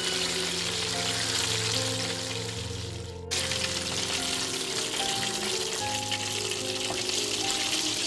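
Chicken wings deep-frying in hot oil, a steady dense sizzle as they crisp in the final minutes of frying. The sizzle breaks off abruptly about three seconds in and picks straight up again.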